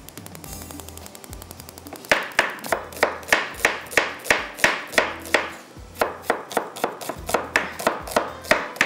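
Gas stove's spark igniter clicking rapidly for about a second, then a knife chopping onion on a cutting board at about three strokes a second, with a short pause near the middle.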